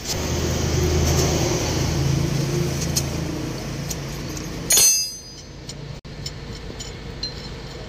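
A vehicle engine running with a low, steady rumble that fades out after about four and a half seconds. It is cut off by one sharp, ringing metallic clank, followed by a few light clinks of steel tools.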